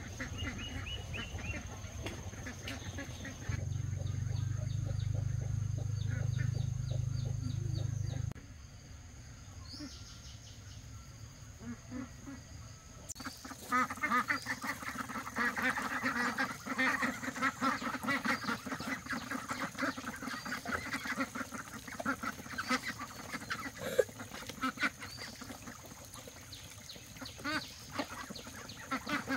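A flock of young domestic ducks quacking and dabbling at a tray of feed, with many quick bill clicks and calls starting about a dozen seconds in. Before that, a low steady rumble lasts a few seconds.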